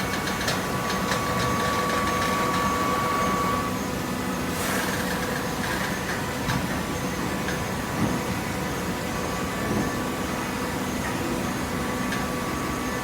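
Hydraulic cardboard baler running: a steady motor and pump hum with a high whine that drops away a few seconds in, a brief rush of hiss, and a few knocks.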